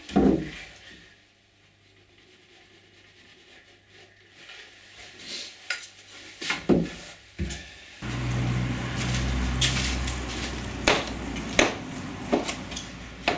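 Scattered knocks and light clatter of wooden pieces being handled, with a quiet stretch between them. About two-thirds of the way through, a steady low hum starts, and sharp clicks and rattles follow as a plastic power-tool case is unlatched and opened.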